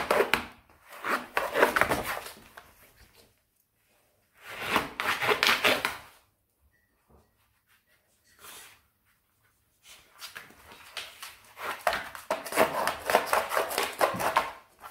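A whippet puppy's claws scratching and scrabbling at a large flat cardboard box, in bursts of a second or two with short pauses between.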